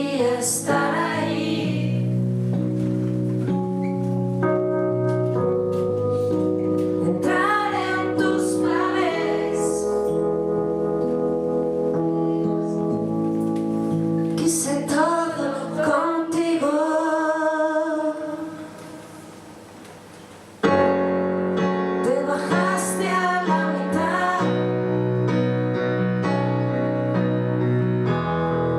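Live band playing a slow song, a woman singing over sustained keyboard chords. About two-thirds of the way through the music falls away to a quiet passage for a couple of seconds, then the full band comes back in all at once.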